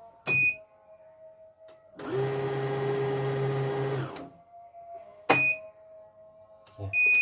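CNY computerised embroidery machine: a short electronic beep at a button press, then its motor runs steadily at one speed for about two seconds and stops. Two more button beeps follow.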